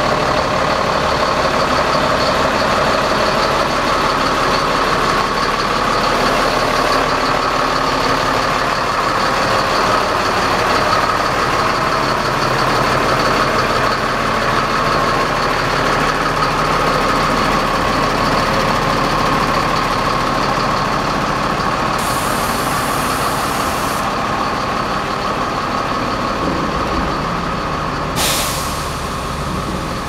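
Mercedes Axor 1823 truck's diesel engine idling steadily, with a steady whine over it. A short sharp hiss of released air comes near the end.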